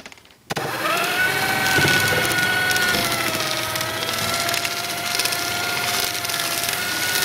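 Electric paper shredder starting up about half a second in and running with a steady motor whine, its cutters crackling through a folded paper airplane.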